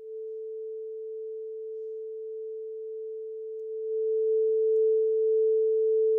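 Steady 440 Hz pure sine tone from an online tone generator, used as a reference tone for calibrating a decibel sensor. It starts abruptly and steps up in loudness about four seconds in.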